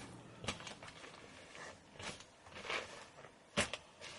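Hands rummaging through a bag and its contents: rustling with a few soft knocks, the sharpest near the end.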